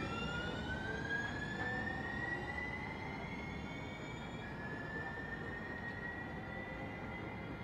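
Electric trolley's traction motors whining as it pulls away, several tones climbing steadily in pitch; about halfway through the tone steps back down and climbs again.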